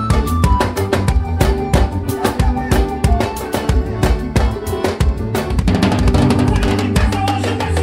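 Live band playing an instrumental passage: a drum kit drives a quick, steady beat on bass drum, snare and cymbals, over held notes from accordion and keyboard with bass guitar underneath.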